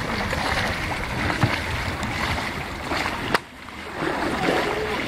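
Kayak paddles dipping and splashing in river water, over a steady rushing water noise. About three seconds in there is a sharp click and a brief dip in level before the water sound returns.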